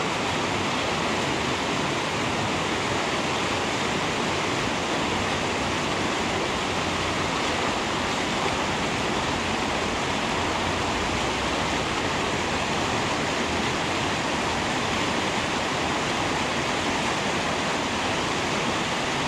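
Steady rush of river rapids, water pouring over rocks in whitewater.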